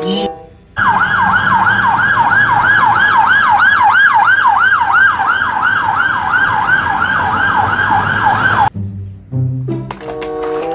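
Police van siren in a fast yelp, its pitch rising and falling about three times a second. It starts about a second in and cuts off suddenly near the end.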